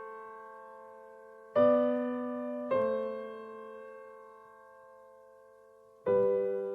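Background piano music: slow, soft chords struck three times and left to ring and fade.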